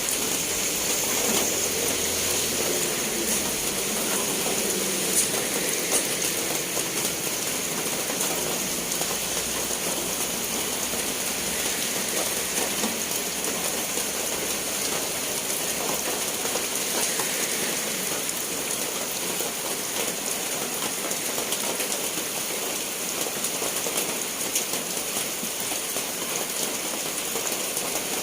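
Steady rain falling and pattering on surfaces, with scattered sharper drop ticks.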